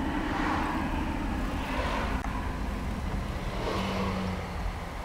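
Steady engine and tyre noise heard from inside the cabin of a moving car, with a brief low hum about four seconds in.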